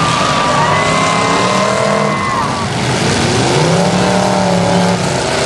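Several demolition derby cars' engines revving up and down at once over a dense rush of noise.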